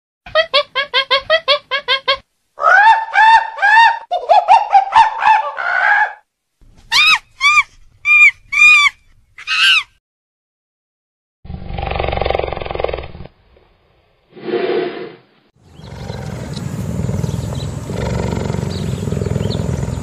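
Macaque calls: a quick run of short, sharp calls, then longer calls, then a few higher, shriller ones. From about eleven seconds in, rough growling sounds take over.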